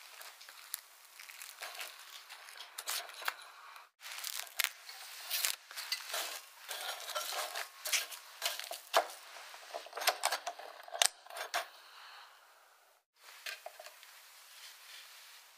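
Plastic cling film crinkling and crackling as it is stretched and pressed around a square metal mousse ring, with many sharp crackles and a brief break about four seconds in. Near the end the rustling gives way to quieter handling.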